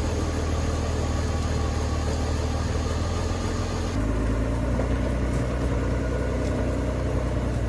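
Heavy truck engine running steadily while the truck is stuck in deep mud. Its sound changes about four seconds in: the low rumble gets stronger and the hiss above it fades.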